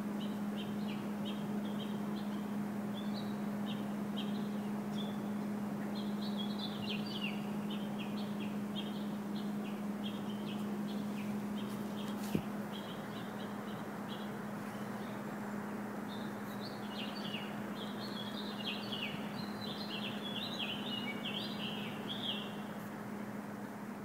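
Songbirds singing in the trees in quick runs of short, high chirps that come in two busy spells, over a steady low hum. A single sharp click comes about twelve seconds in.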